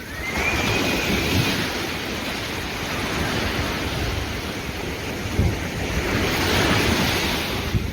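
Sea waves washing and splashing, with wind rumbling on the microphone; the wash swells up about a second in and again near the end.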